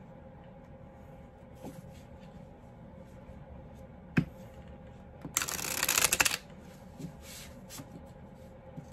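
A deck of cards being handled and shuffled: a sharp tap about four seconds in, then a quick flurry of shuffling lasting about a second, with a few light card ticks after.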